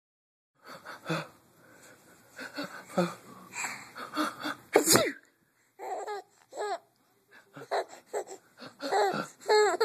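Breathy gasps build up to one loud sneeze about five seconds in, and a baby answers with short bursts of laughter.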